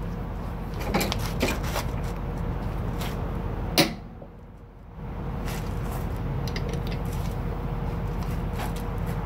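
Irregular metal clinks and knocks of a ratchet wrench and socket being fitted and worked on a nut of a truck's air-bag suspension mount, the sharpest knock about four seconds in, over a steady low hum.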